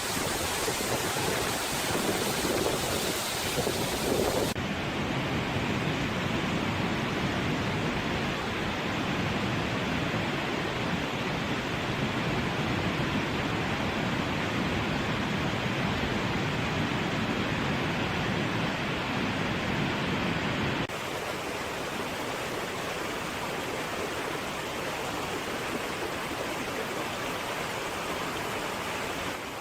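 Running water rushing steadily, like a stream or waterfall. The sound changes abruptly twice, about four seconds in and near two-thirds of the way through.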